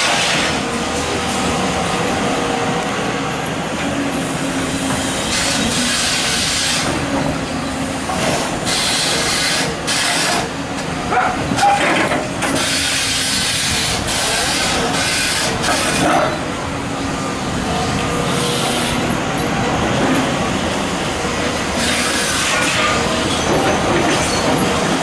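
Excavator at work: its diesel engine runs steadily, with repeated surges of hissing noise lasting a second or two each, several times over.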